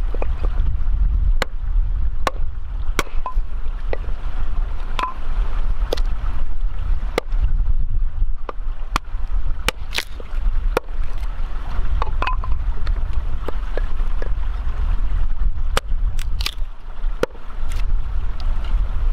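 A steady low rumble, with irregular sharp clicks and snaps about once a second.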